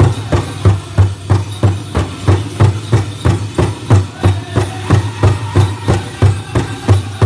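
Powwow drum beaten in unison by a drum group, a steady beat of about three strikes a second, carrying a men's chicken dance song.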